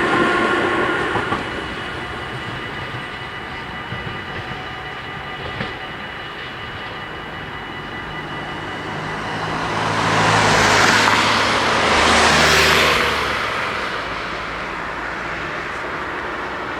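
Dutch level crossing just after a train: the ringing of the crossing bells stops about a second in. About ten seconds in, road vehicles drive across, the loudest sound, rising and fading twice.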